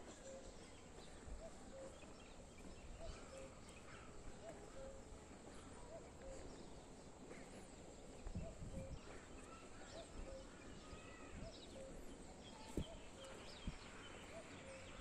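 Faint birdsong: a short low call repeated evenly about every three-quarters of a second, with scattered higher chirps from other birds and a low rumble now and then.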